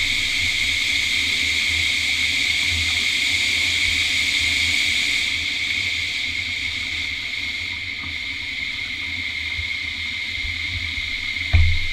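Steady steam hiss from a miniature live-steam locomotive letting off steam, easing a little about halfway through.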